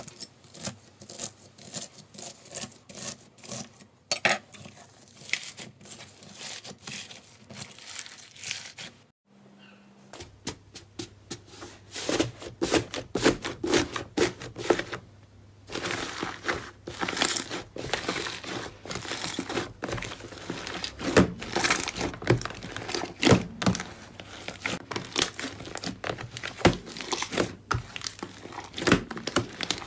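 Slime being squeezed, poked and stretched by hand, giving dense crackling and popping clicks. Near-silent for about a second around nine seconds in, then the crackling resumes louder with a low steady hum underneath.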